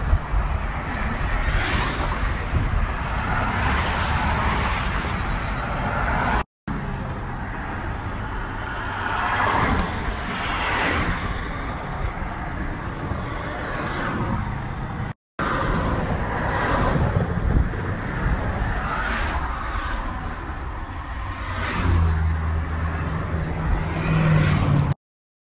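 Freeway traffic rushing past close by: a continuous roar of tyres and engines that swells again and again as vehicles go by. A deeper, steady engine hum comes in near the end.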